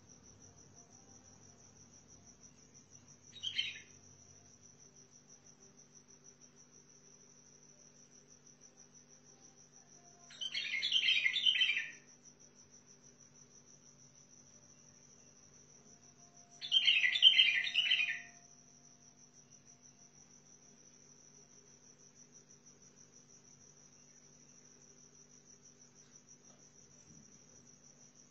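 White-eared bulbul singing: one short phrase about three seconds in, then two longer phrases of quick notes of about two seconds each, a few seconds apart near the middle. A steady high-pitched pulsing trill sounds underneath.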